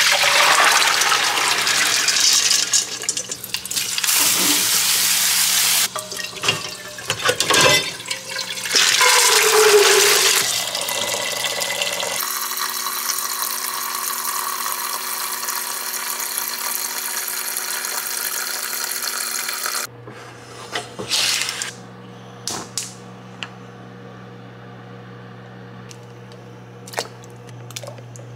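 Soaking water from a pot of soaked beans pouring into a metal colander in the sink, in loud, uneven splashing rushes for about ten seconds. A tap then runs steadily into the pot of beans for about eight seconds and cuts off. A few light knocks and clicks follow near the end.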